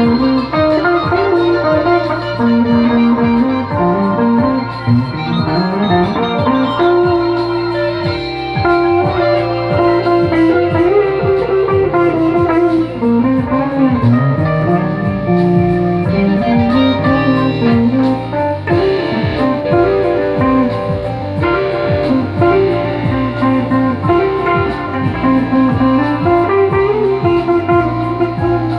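Guitar music, a blues-style instrumental with a plucked guitar melody over a steady bass.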